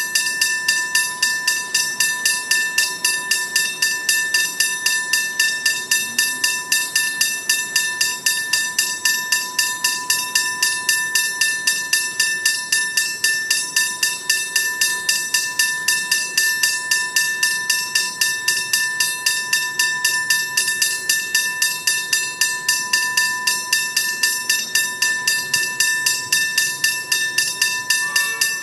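Level crossing warning bell ringing continuously with rapid, even strokes, signalling that the crossing is active for an approaching train.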